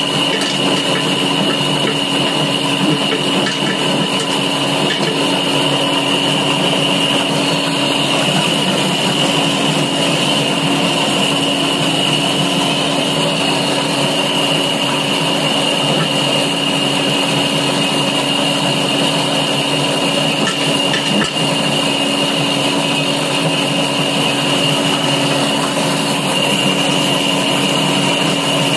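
An electric-motor-driven peeling machine running steadily while fibrous husk material is fed into it: a constant hum with a high whine over a dense rushing noise.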